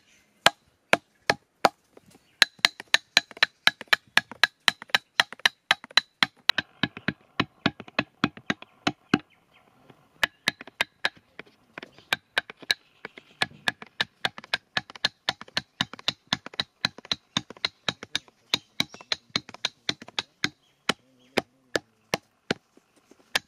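Hammer tapping a rod to pack composition into the paper tubes of spinner firecrackers: sharp, quick taps at about three to four a second, each with a short ring, stopping briefly now and then as the rod moves to the next tube.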